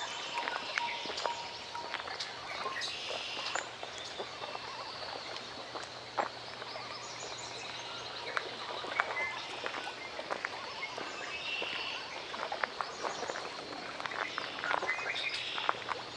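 Lakeside nature soundscape: birds chirping over water lapping at the shore, with many small clicks and ticks and a steady outdoor hiss.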